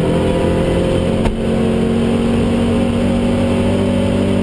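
Opel Ascona i2000's four-cylinder rally engine running hard under load, heard from inside the cabin. The note holds fairly steady, with a brief click and a change of note about a second in.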